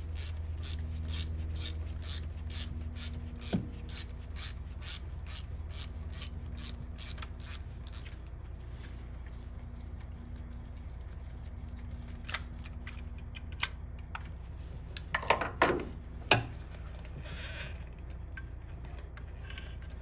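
Ratchet wrench clicking steadily, about three clicks a second, as the 11 mm bolt of a fuel-injector clamp is undone; the clicking stops about eight seconds in. A few sharper knocks follow around fifteen seconds in.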